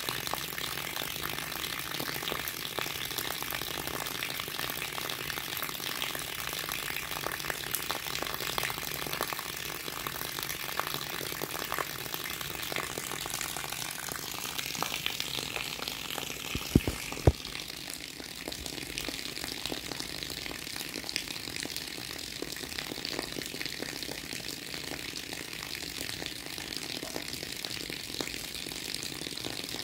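Rain falling on wet ground and puddles: a dense, steady patter of drops. Two sharp knocks come a little over halfway through, after which the deeper part of the patter falls away and a high hiss remains.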